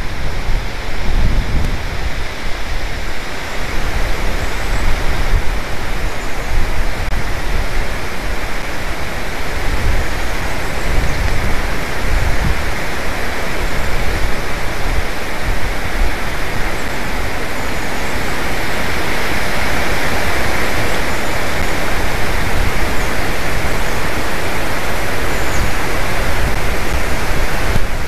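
Wind blowing on an outdoor nest-camera microphone: a steady rush of noise with low buffeting gusts, growing a little steadier and louder in the second half.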